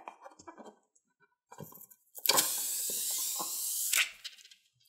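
Rubber balloon handled with soft rubbing and clicks, then a loud steady hiss of air being squeezed out through the balloon's opening, lasting about a second and a half and stopping suddenly.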